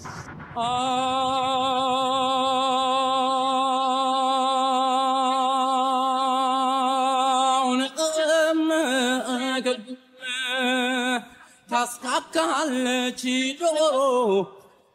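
An unaccompanied male singing voice, an isolated a cappella vocal track, holds one long note with a steady vibrato for about seven seconds. It then moves into shorter ornamented phrases that bend up and down, ends on a falling glide, and stops just before the end.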